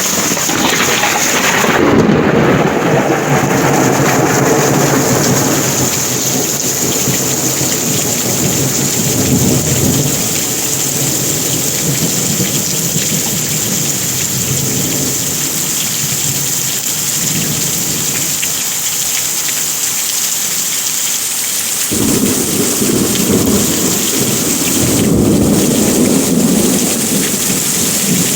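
Heavy rain pouring steadily, with rolling thunder. A long rumble swells about two seconds in and fades over several seconds, and another sets in suddenly near the end.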